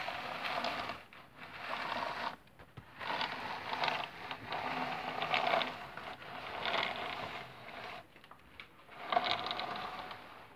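Toy trains run along a wooden floor: a mechanical whirring and scraping in about five bursts of one to two seconds, with short gaps between them.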